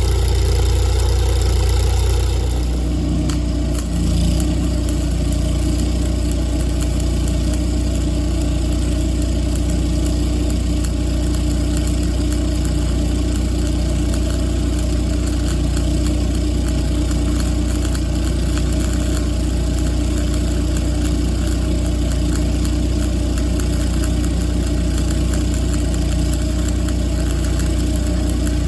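An engine running at a steady idle, settling into a steadier, lower-pitched note about two and a half seconds in.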